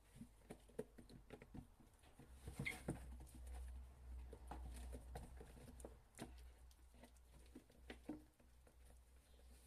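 Faint, irregular light taps and scuffles of young kittens moving about, with a low hum through the middle.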